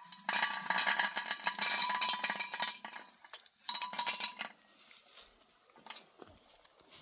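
Metal cooking utensils and pots clinking and scraping rapidly for a couple of seconds, a short pause, then another brief spell about four seconds in; after that only a few light taps.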